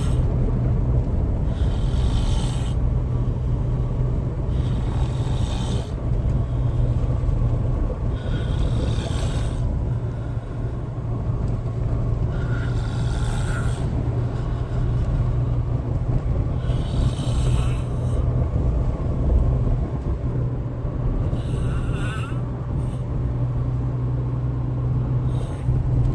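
Loud snoring from a sleeping person, one breath about every four seconds, over a steady low drone.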